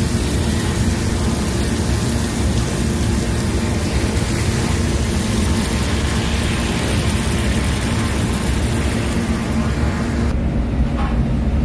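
A hot pan sizzling and bubbling steadily after a cup of water has gone in with the vegetables and oil, over a steady low hum. The hiss thins out about ten seconds in.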